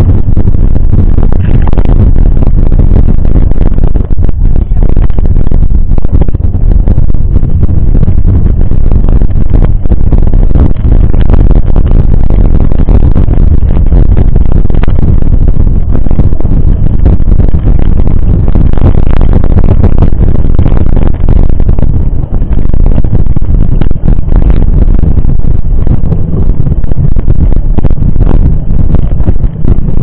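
Wind buffeting the microphone of a camera on a moving mountain bike: a loud, steady rumble that keeps the recording near full level.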